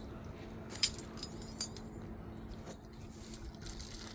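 A few light metallic clinks and jingles, three sharp ones in the first two seconds and softer ticks after, over a faint steady hum.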